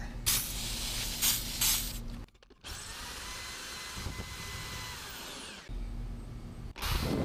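Electric drill running steadily with an Irwin cobalt bit, drilling out a seized steel bolt in a mower deck spindle housing, the bit kept cool with oil. The sound drops out briefly a little over two seconds in and changes tone twice later on.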